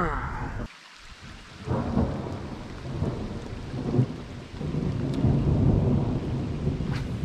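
Thunder rumbling in several uneven rolling swells, over a faint hiss of rain.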